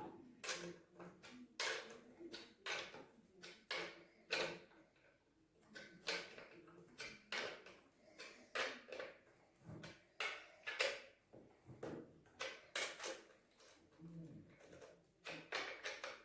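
Irregular clicks, taps and light knocks of chainsaw parts and tools being handled and fitted together during assembly, a few a second with short pauses.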